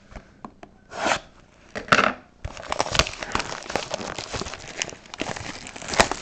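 Plastic wrapping on a sealed trading-card box crinkling and tearing as it is pulled open: two short rustles, then steady crackling from about two and a half seconds in.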